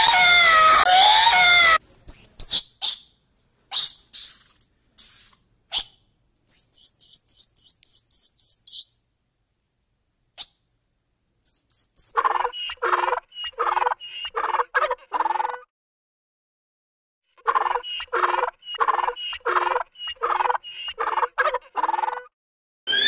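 A sequence of different animal calls with silent gaps between them: a wavering cry, then sharp high chirps and a quick run of high notes, then two runs of rapid repeated calls, about two or three a second.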